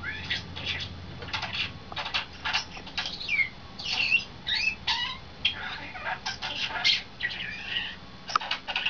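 Pet starling singing: a rapid, varied run of clicks, chirps and short whistles, some sliding up or down in pitch.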